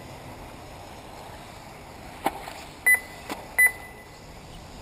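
Two short, high electronic beeps about three quarters of a second apart from the race's lap-timing system as cars cross the line, with two sharp clicks shortly before and between them, over low steady background noise.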